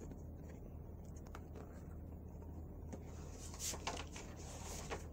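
Faint rustling of a picture book's pages being handled and turned, strongest about three and a half seconds in, over a low steady hum.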